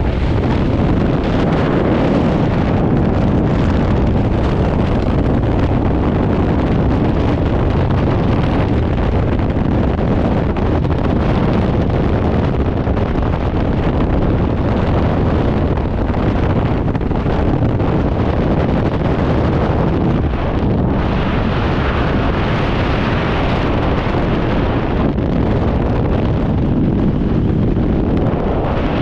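Loud, steady roar of freefall airflow buffeting a helmet-mounted action camera's microphone.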